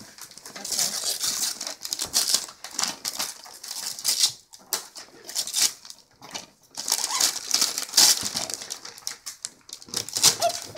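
Wrapping paper being torn off a present and crumpled by hand: irregular bursts of ripping and crinkling paper, with short pauses between them.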